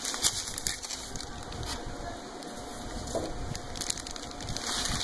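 Plastic packaging bag crinkling and rustling as hands handle it, with irregular small crackles and rubs.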